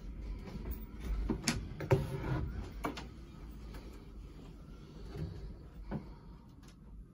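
Wooden cabin door being handled and opened, with several sharp knocks and clatters in the first three seconds and one more about six seconds in, over a low handling rumble.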